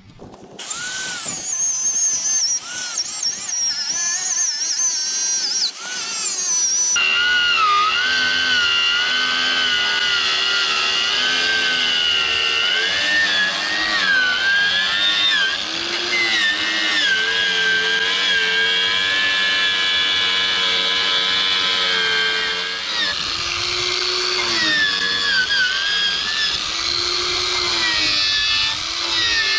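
Power tool running with a whine whose pitch wanders up and down as the load changes. A harsher, brighter stretch in the first few seconds cuts off abruptly about seven seconds in.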